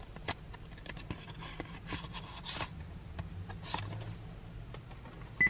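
A CD case being handled and the disc pulled out of it: scattered small clicks, scrapes and rustles over a faint steady low hum, with a short beep near the end.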